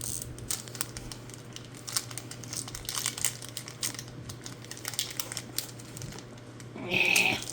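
A candy bar's wrapper crinkling and crackling as it is handled and opened, with a louder, sharper crinkle burst near the end.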